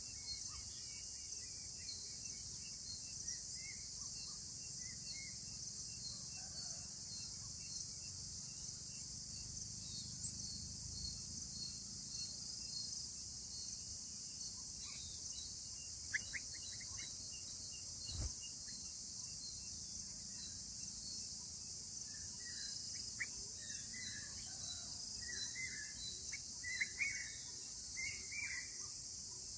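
Steady, high-pitched drone of an insect chorus, with short bird chirps scattered through it that come more often in the last several seconds. One sharp click about eighteen seconds in.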